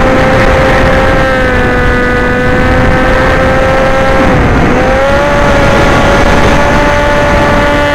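Motor and propeller of an FPV model aircraft heard through its onboard camera, a steady whine that dips in pitch briefly a little past halfway and then rises again, over rushing wind and vibration noise.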